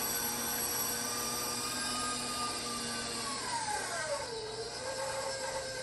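Stand mixer's motor running with a rotary shredder attachment, shredding zucchini: a steady whine whose pitch drops a little over halfway through and then holds lower.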